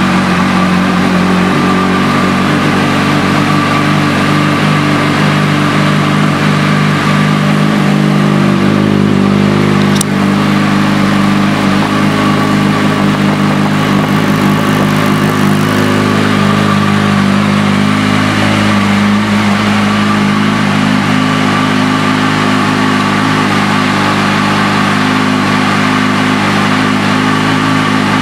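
2007 Yamaha YZF-R1's inline-four engine idling steadily, just after being started, through an aftermarket slip-on exhaust. A single faint click about ten seconds in.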